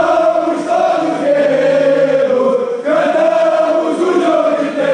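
Crowd of football supporters chanting together in unison: long held, sung phrases with a short break about three seconds in.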